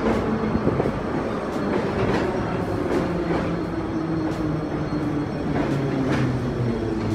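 Soviet-era E-series Moscow metro train pulling in and slowing: its wheels click over the rail joints, the clicks coming further apart, under a low motor whine that falls in pitch.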